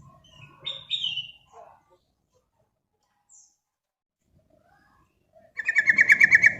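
Yellow-vented bulbul (trucukan) singing: a few short bubbly notes about a second in, then after a pause a loud, rapid run of repeated notes near the end.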